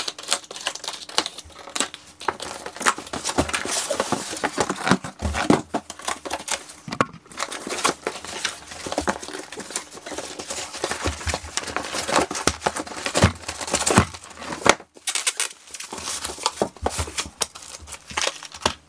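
Large cardboard boxes being torn open and unpacked: cardboard and packaging tearing, crinkling and rustling irregularly throughout, with many small sharp knocks and clicks as flaps and contents are handled.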